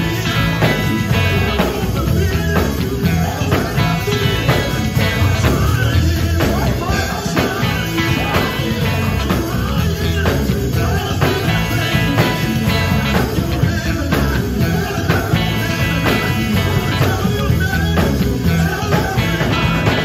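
Live gospel band playing through a PA: a lead vocalist sings over electric guitar, bass guitar and drum kit.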